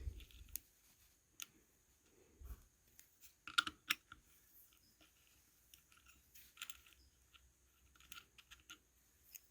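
Faint, scattered light clicks and taps of small metal tools and parts being handled, with a cluster of sharper clicks about three and a half seconds in.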